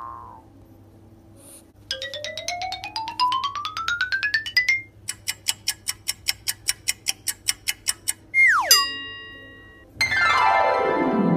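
Cartoon-style comedy sound effects. About two seconds in comes a rising run of quick plinking notes, then a steady string of sharp ticks, about seven a second. Next is a quick downward swoop ending on a held ringing tone, and near the end a long falling glide.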